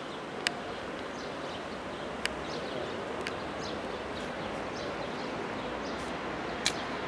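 Small birds chirping in quick short calls over a steady hum of distant city traffic, with a few sharp clicks, the loudest about half a second in and again near the end.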